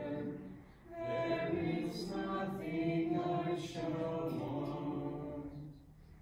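Responsorial psalm being sung: voices singing a slow, chant-like melody in sustained phrases, with a brief pause about a second in and another near the end.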